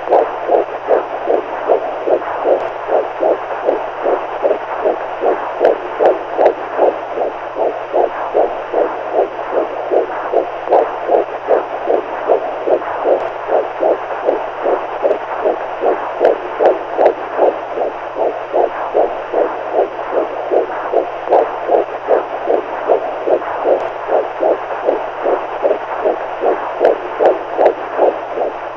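Heartbeat sound played as a baby sleep aid, beating in a steady, even rhythm over a continuous hiss and a low steady hum.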